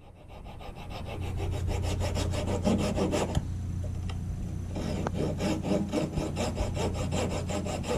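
Hacksaw cutting through a wooden axe wedge in quick, repeated back-and-forth strokes, shortening the wedge to fit the axe head's eye.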